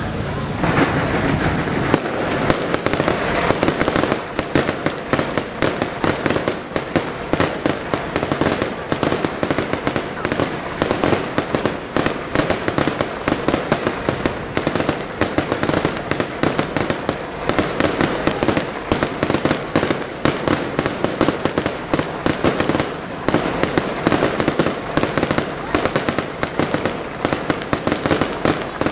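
Fireworks display firing continuously: a dense barrage of small bangs and crackle, many reports a second without a break.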